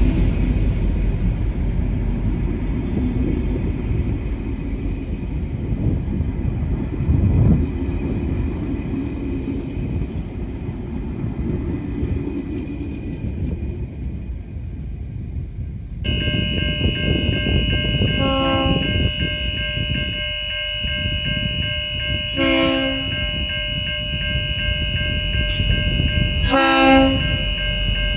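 Low rumbling for the first half. Then, after a sudden change about halfway in, steady high tones appear and a V/Line N Class diesel locomotive's horn sounds three short blasts about four seconds apart.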